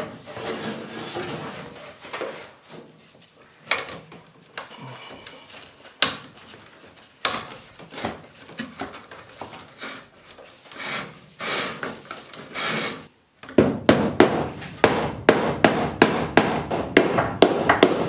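Rubbing and scraping of hands working cable and a plastic electrical box against the wooden ceiling joists, with scattered clicks. Near the end a hammer starts striking the wooden joist overhead in a quick, even series of blows, about three a second, louder than the handling before it.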